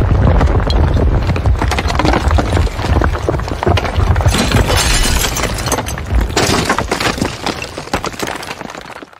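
Building collapse: a deep rumble with dense crashing and crackling of breaking debris, which fades out near the end.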